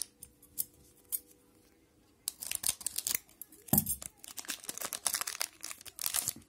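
Foil wrapper of a hockey card pack crinkling and crackling as it is handled and opened by hand. A few light clicks come first, then about four seconds of dense crinkling with a knock partway through.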